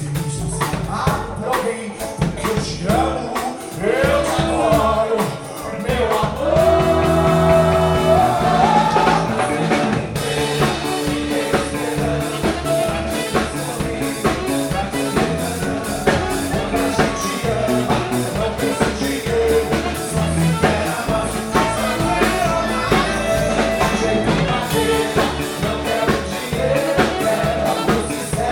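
Band music with a singer over a drum kit and bass keeping a steady beat.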